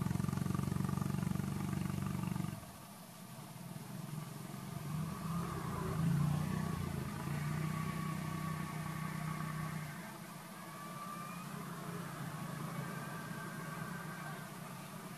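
A motor engine running, its low hum dropping suddenly about two and a half seconds in, then rising and falling again.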